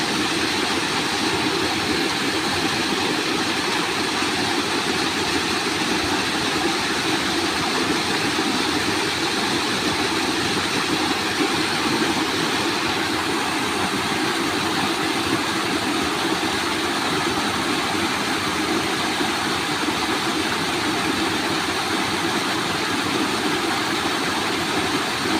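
Steady rushing of flowing water, an even, unbroken noise with no rhythm or pitch.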